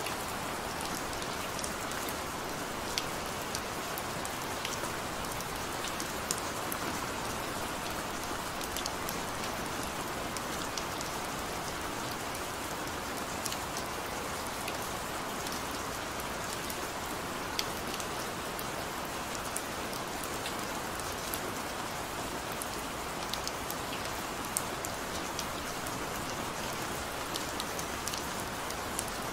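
Gentle rain falling steadily: an even hiss with scattered sharp taps of single drops.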